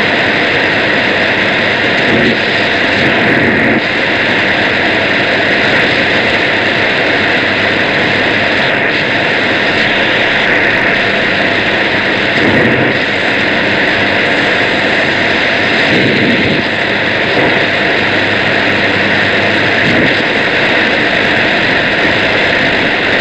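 Shortwave radio reception drowned in steady, loud hiss and interference noise, with no clear voice getting through.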